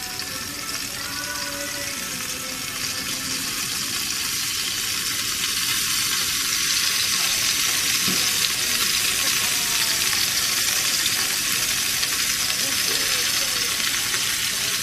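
Pancake batter and melted butter sizzling on a hot electric griddle: a steady frying hiss that grows louder over the first few seconds.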